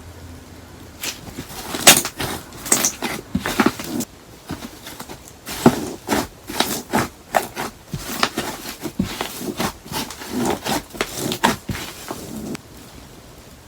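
Hands squeezing and kneading paper clay slime: irregular sticky squelches and crackly pops, several a second, stopping about a second before the end.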